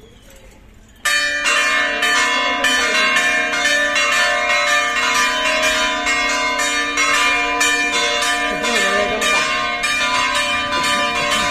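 Church bells ringing a rapid peal, about three strokes a second, with many bell tones sounding over one another; it starts abruptly about a second in.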